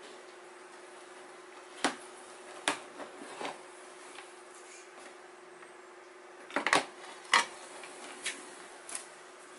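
Metal snake hook knocking against a plastic tub and bark chips as a cobra is lifted: a scatter of short sharp clicks and knocks, the loudest cluster about two-thirds of the way through.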